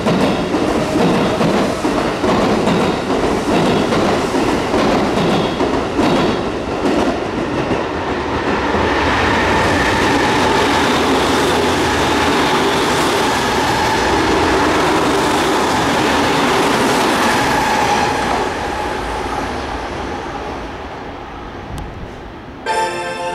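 Tokyo Metro Tozai Line train running through the station without stopping: wheels clicking rapidly over rail joints, then a steady running noise with a faint high whine, fading away over the last few seconds. A short chiming melody starts at the very end.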